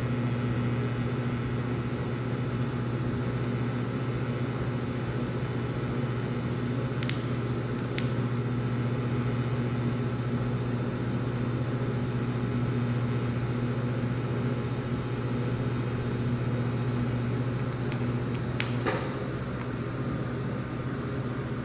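TIG welding a joint on steel pipe: a steady low electrical hum from the welder with the arc's buzz over it. A few sharp clicks come in the middle and near the end, and the sound eases slightly near the end as the arc is stopped.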